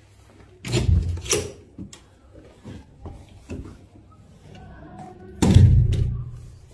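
A door being opened and shut: a clattering knock about a second in, a few small clicks and knocks, then a heavier bang about five and a half seconds in.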